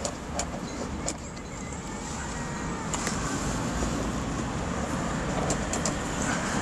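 A hand handling the roof-lining trim of a Citroen Grand Picasso's cabin: a few light clicks, several close together near the end, over a steady low rumble.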